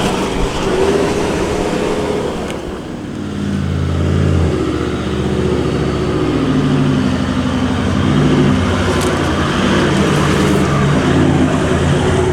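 Four-wheel drive's engine running while driving, its pitch rising and falling with the throttle over steady road and tyre noise.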